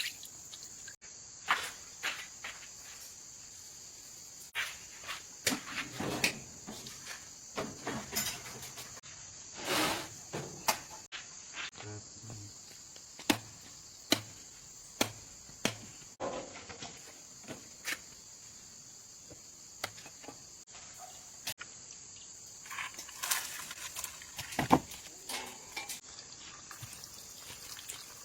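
Steady high chirring of crickets and other insects, with scattered sharp clicks and knocks from hands working nearby.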